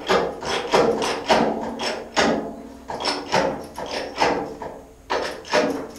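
A jack handle being pumped: about nine sharp metallic clanks, one every half second to a second. The jack is building pressure against a chain-tensioned vehicle chassis to push it straight.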